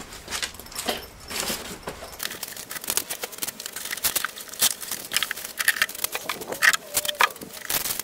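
Handling noise from gear being taken out of a hard motorcycle saddlebag: rustling and crinkling of a fabric bag liner and its contents, with scattered small clicks and knocks.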